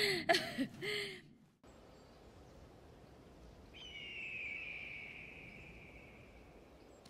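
A woman's brief chuckle, then a faint steady outdoor hush in which an eagle gives one long, high squawk that slides slightly down in pitch and fades away.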